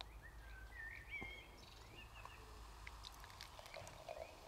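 Faint birdsong: a few short whistled glides and chirps, over a low steady outdoor hush.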